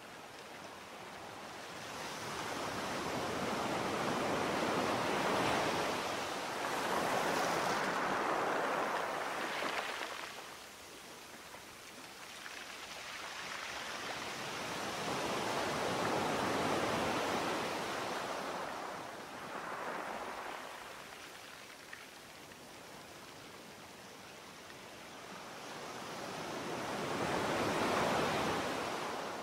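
Sea waves surging and falling back in three slow swells, roughly ten seconds apart.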